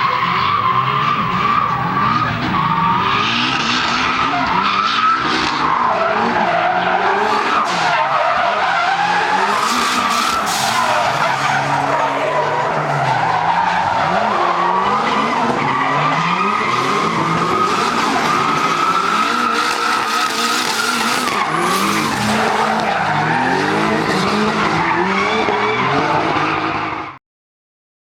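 Drift car sliding through a run: the engine revs up and down at high revs under continuous tyre squeal. The sound cuts off suddenly near the end.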